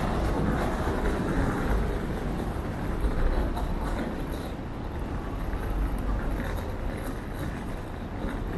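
City street traffic: cars passing on the road beside the sidewalk, a continuous noise of engines and tyres, heaviest in the low end.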